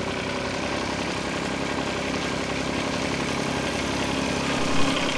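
John Deere 6910 tractor's diesel engine idling steadily.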